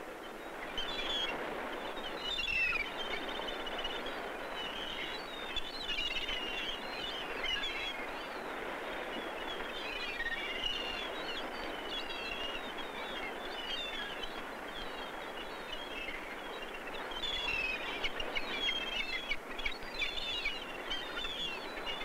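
A flock of gulls calling, many short overlapping cries over a steady rushing background noise; the calls are thickest early on and again near the end.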